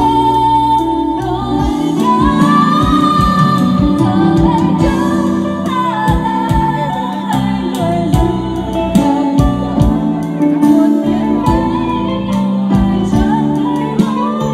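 A woman sings a Vietnamese song into a microphone, amplified, backed by a live band. Electronic drum pads struck with sticks keep a steady beat under keyboard and electric bass guitar.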